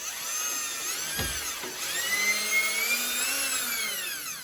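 Power drill motor whining as it drives out an outlet's mounting screw in reverse. It speeds up, dips sharply about a second in, runs up again and holds, then winds down near the end.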